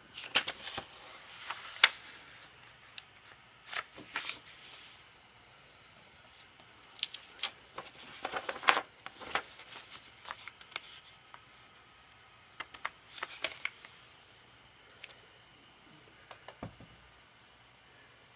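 A sheet of paper being folded into a paper airplane: irregular crisp rustles and sharp crackles as it is bent over and the creases are pressed flat, with quieter stretches between.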